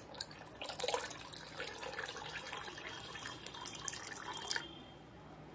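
Water pouring in a stream into a glass bowl of liquid, splashing and frothing as it lands; the pour stops about four and a half seconds in.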